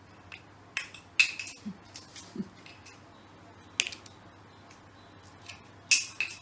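A few short, sharp clicks and clinks, spaced irregularly, over a quiet room.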